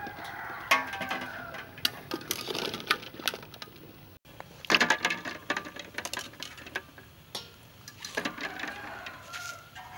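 A slotted metal ladle clinking and knocking against an aluminium pot as boiled eggs are scooped out, and the eggs knocking together as they drop into another pot. The clinks come irregularly, with a dense cluster about halfway through.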